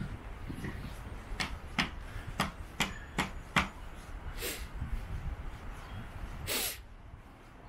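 Footsteps of a person walking barefoot along the beach, a steady crunching step about two and a half times a second that stops a little over halfway through. Then two short hissing rushes, the second louder, over a low steady rumble.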